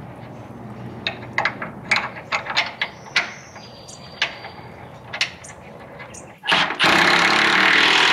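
Light metal clicks and clinks as the sway bar bushing bracket bolt is threaded in by hand. About six and a half seconds in, a cordless power tool starts running steadily and loudly, driving the bolt in.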